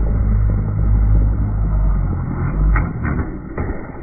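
Heavy wind rumble buffeting the microphone over choppy water, easing a little past the middle, with three short knocks near the end.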